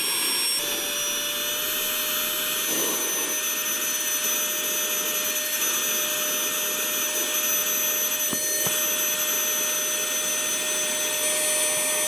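Cordless handheld car vacuum running steadily, a motor whine over a rush of air, its nozzle sealed against a cardboard box lid under suction. The whine steps up slightly in pitch about half a second in, and a couple of light knocks come about eight seconds in.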